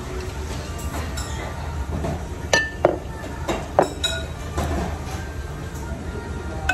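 Ceramic dishes clinking: three sharp clinks with a brief ring near the middle, over a steady low background hum.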